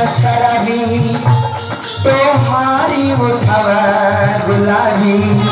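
Live Bhojpuri folk song: a man sings a long, gliding melody line over a fast, even beat of drum and rattling percussion.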